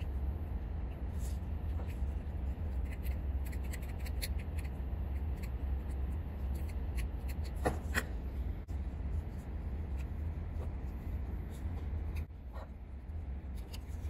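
Scattered small clicks and rubbing from parts being handled, over a steady low hum; the loudest click comes about eight seconds in.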